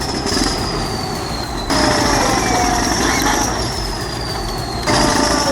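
Heavy earthmoving machinery's diesel engine running under load, with a high whine that slowly drops in pitch. The sound changes abruptly twice, about a second and a half in and near the end.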